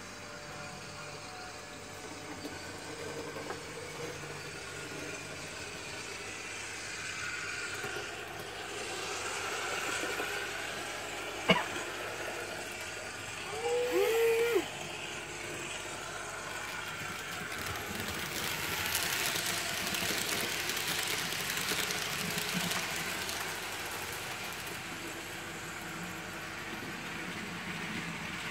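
N-scale model train running on the layout, a faint steady whirring and rolling hiss that grows louder for several seconds in the second half. One sharp click comes about 11.5 s in, and a brief squeak a couple of seconds later.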